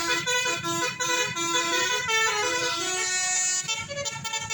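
Tour bus's basuri telolet horn playing a rapid tune: short, stepped notes that jump up and down in pitch, one after another without pause.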